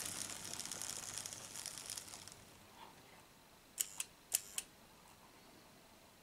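Märklin H0 model train running on tinplate M-track: a high, rapid clatter of wheels on the metal rails that fades away about two seconds in. A little later come four sharp clicks in two quick pairs.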